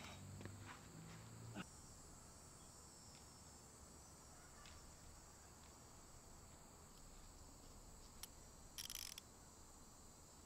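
Faint steady high-pitched chirring of insects, with a few light clicks and low handling noise in the first two seconds, then a single click and a brief rustle near the end.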